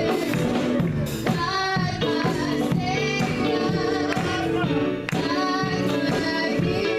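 Women's choir singing a gospel praise song, held and bending sung notes over band accompaniment with a steady beat.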